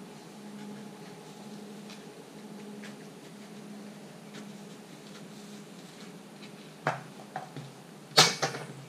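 Long-handled wash brush scrubbing a pickup's body, faint scratchy strokes over a steady low hum. A sharp knock comes about seven seconds in, and a louder knock near the end.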